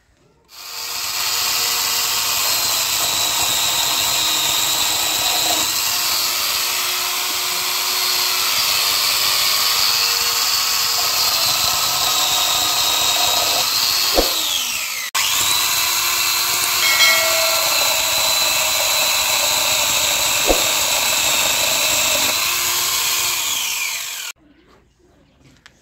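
Electric angle grinder fitted with a chainsaw attachment, running with a high steady whine as its chain cuts through dry wooden branches. It breaks off briefly about halfway, then runs on and stops about a second and a half before the end, its pitch falling just before it stops.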